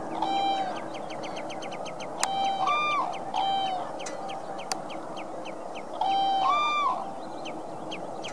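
Whooper swans calling: repeated bugle-like honks, some in pairs that rise at the end, over a steady run of quick high chirps from smaller birds. Two sharp clicks come through in the first half.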